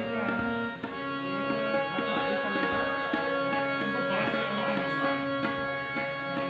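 A band playing a sound check: tabla strokes in a steady rhythm under a sustained melodic instrument holding notes that change pitch every half second or so.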